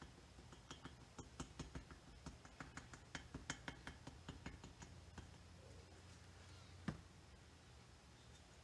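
Near silence with faint, irregular light clicks and taps, many of them through the first half, then one sharper knock about seven seconds in.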